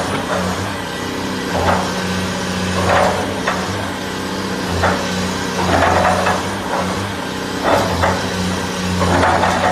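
Diesel engine of a Caterpillar 336 hydraulic crawler excavator running steadily, with short louder surges of noise recurring every one to two seconds.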